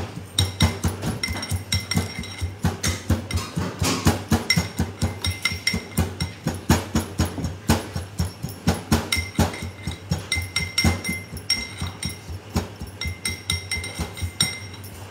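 Metal pestle pounding in a metal mortar, quick steady strokes about four a second, with the mortar ringing at each strike: roasted peanuts being crushed to a coarse powder.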